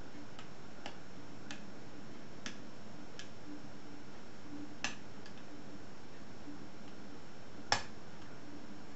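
Small irregular clicks from picking tools working the levers inside a 5-lever ERA mortice lock, spaced unevenly a second or so apart, with one louder click about five seconds in and the loudest near the end.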